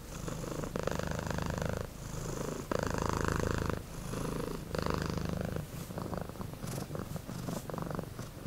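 A domestic cat purring, in pulses about a second long with brief pauses between breaths.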